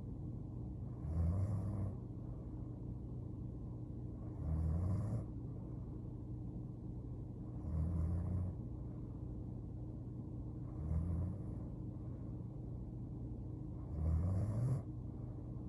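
A sleeping woman snoring: five short snores at a steady pace, about three seconds apart, over a constant low hum.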